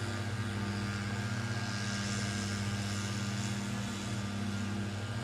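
A steady motor hum with a constant low pitch, level throughout.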